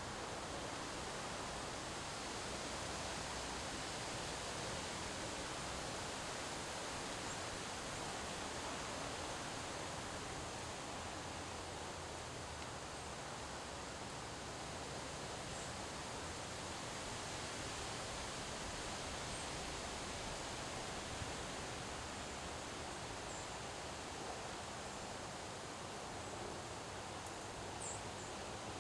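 Windstorm wind blowing steadily, an even rushing noise with a rustle through it.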